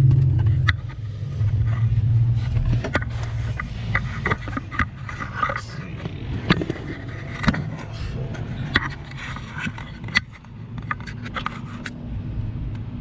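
Scrapes and sharp clicks of hands and a tool working under a pickup's dashboard around the brake light switch, over a steady low hum that is loudest in the first few seconds.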